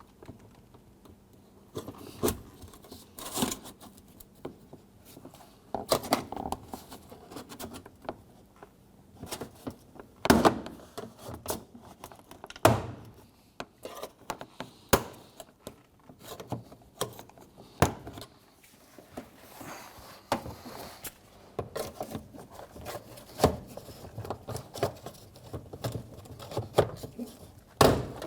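Door panel push clips popping loose as a trim panel tool pries the rear door panel away from the door: irregular sharp clicks and knocks with plastic scraping and rattling between them, the loudest pops about ten seconds in and near the end.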